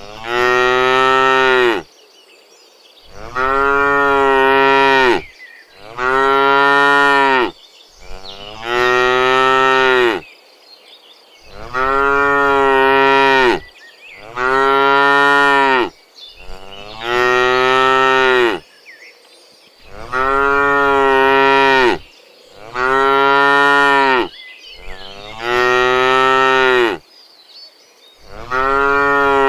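Cows mooing, about eleven long calls of roughly two seconds each in a steady rhythm, each one swelling and falling off at the end, with short pauses between.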